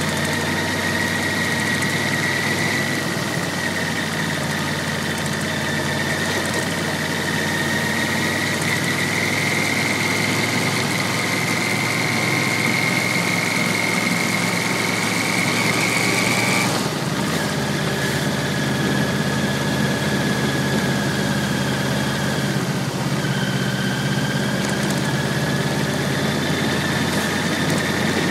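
Yamaha VMAX1200's V4 engine running under way, heard from on the motorcycle. The note climbs slowly, drops suddenly a little over halfway through, then climbs gently again.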